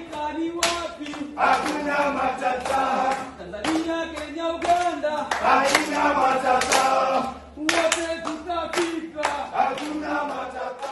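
A group of men singing together with hand claps about twice a second; the singing pauses briefly about three quarters of the way through.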